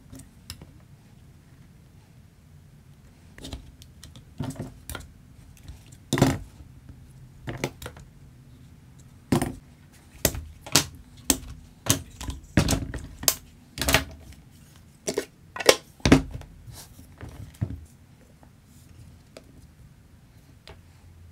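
Blue one-handed plastic bar clamps being ratcheted tight, released and set down, with wooden box parts knocked on the bench: an irregular run of sharp clicks and clacks, busiest in the middle.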